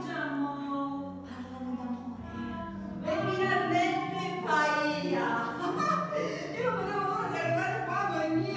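A woman singing to classical guitar accompaniment, with the voice growing louder and fuller about three seconds in.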